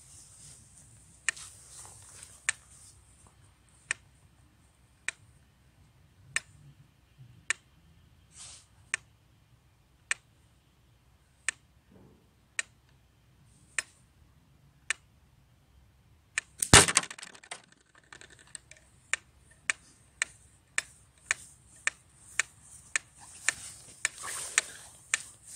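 Wooden pyramid mechanical metronome ticking slowly, about one tick every second and a bit. About 17 seconds in, a single loud sharp impact; after it the ticks come faster, two to three a second. Footsteps rustle on grass near the end.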